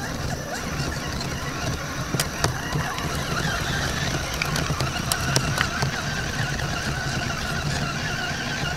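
Axial Wraith RC rock crawler's electric motor and gearing whining steadily as it crawls over river stones, with scattered sharp clicks of tyres and chassis on the rocks.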